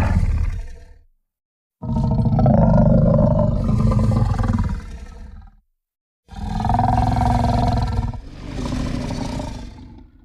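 Fan-made Godzilla-style kaiju growl sound effects: the tail of one growl, then three low, rumbling growls of about two to four seconds each, with short silences between them.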